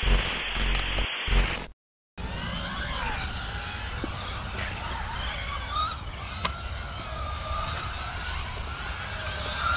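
A short logo sound effect of hissing with clicks, cut off by a brief silence. Then the electric motors of 1/18-scale Maverick Ion micro RC cars whine, several pitches sliding up and down with the throttle, with one sharp click of an impact about six and a half seconds in.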